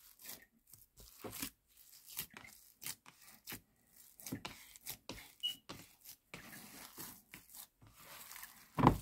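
A hand squeezing and kneading a moist croquette mixture of shredded chicken and mashed potato in a plastic bowl: a string of soft, irregular squishing and crackling sounds. There is a louder knock near the end.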